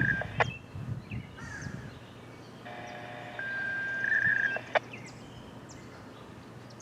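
A short sequence of steady electronic chime-like tones, repeating about every four seconds and each time ending in a sharp click, with a bird chirping.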